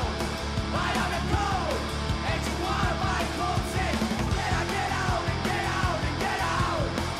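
Live rock band recording with a yelled, sung lead vocal over the full band; the bass line changes about four seconds in.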